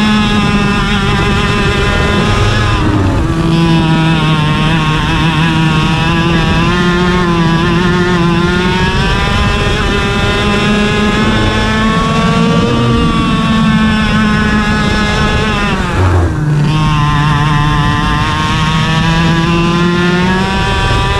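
IAME KA100 100cc two-stroke kart engine at racing speed, heard onboard: its pitch climbs along the straights and falls sharply when the driver lifts for corners, about 3 seconds in and again about 16 seconds in.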